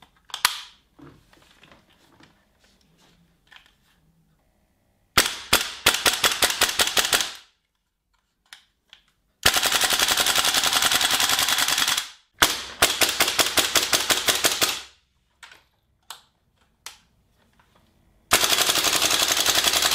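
GHK AKM gas blowback airsoft rifle firing on full auto in four bursts of two to three seconds each, the bolt cycling in a rapid clatter. A single sharp click comes about half a second in, before the first burst.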